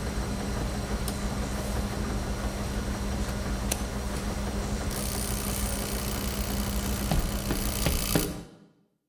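Steady mechanical hum of laundromat machines, with a constant low tone and a few faint clicks. A higher hiss joins about halfway, and the hum fades quickly to silence shortly before the end.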